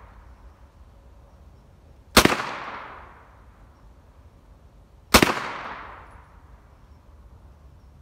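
Two rifle shots about three seconds apart, each a sharp crack followed by an echo that fades over about a second.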